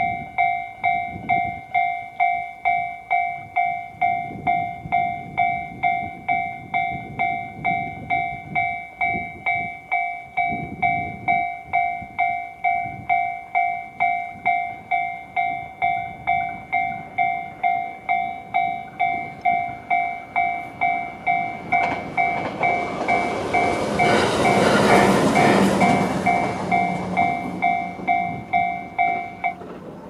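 Japanese level-crossing alarm ringing the JR standard electronic bell tone, a two-pitch ding repeating a little under twice a second. About two-thirds of the way through, a 521 series electric train passes over the crossing, its rushing noise swelling and fading over about five seconds. The bell cuts off just before the end as the warning ends.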